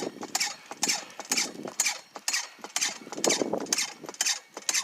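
Dirt and gravel rattling and sliding in a gold pan, shaken back and forth in an even rhythm of about two strokes a second.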